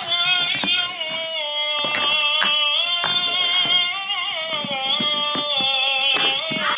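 Arabic Islamic nasheed, a supplication to God: one voice singing a long, ornamented melody with sliding pitch, with sharp beats under it.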